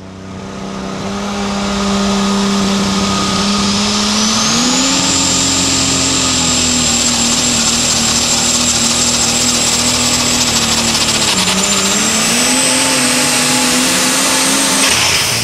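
Light super stock pulling tractor's turbocharged engine at full power pulling a weight-transfer sled, its pitch stepping up about four seconds in and then holding steady. A high whine climbs alongside it, and the engine dips briefly in pitch near the end before picking back up.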